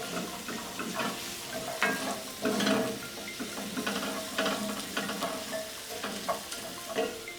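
Diced onions, ginger and garlic sizzling in hot ghee in a pan while being stirred, a utensil scraping against the pan in irregular strokes.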